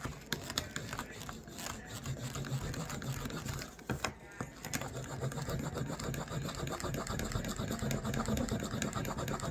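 Rapid, continuous rubbing strokes of a hard tool burnishing the edge of a leather knife sheath, compressing the fibres to smooth and shine it.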